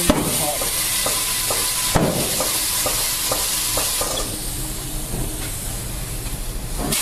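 Compressed air hissing steadily from a tire-shop air hose at a freshly mounted tire, with a couple of knocks; the hiss drops off about four seconds in.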